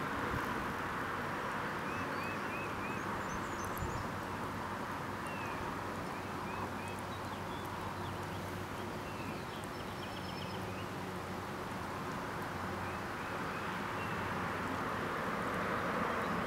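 Marsh ambience: a steady hiss with a faint low hum, and faint distant songbird chirps coming in short runs of three or four notes several times.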